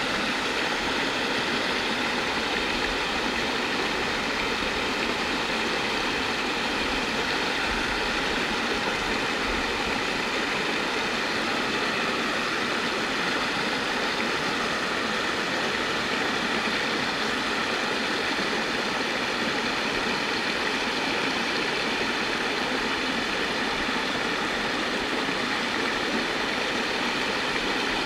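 Shallow creek water pouring over a flat rock ledge in a small white-water cascade, a steady rush and splash that holds even throughout.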